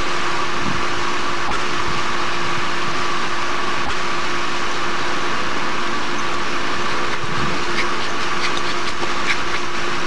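Steady mechanical hum: a motor running evenly with a constant tone, unchanging throughout.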